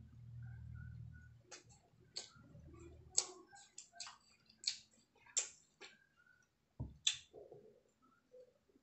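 Close-up eating sounds of biting into and chewing a wedge of watermelon: a string of short, crisp, wet clicks and crunches. A low rumble in the first second or so as the slice is handled and lifted.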